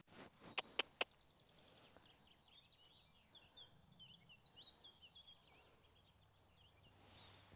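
Near silence with faint birdsong of short high chirps, after about four sharp clicks in the first second.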